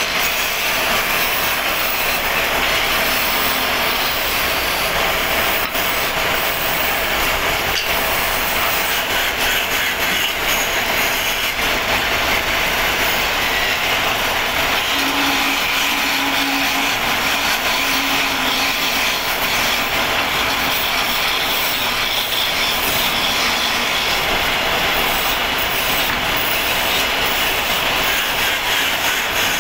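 Motor-driven wood lathe running steadily while a hand-held chisel cuts into a spinning wooden rolling-pin blank.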